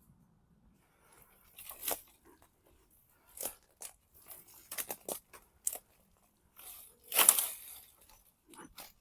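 Dry twigs and leaf litter crunching and snapping on a woodland floor, in irregular crackles with the loudest about seven seconds in.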